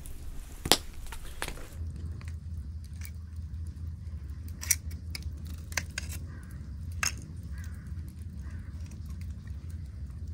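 Scallops being shucked with a knife: a scatter of sharp clicks and scrapes as the blade works against the shells, over a low steady rumble.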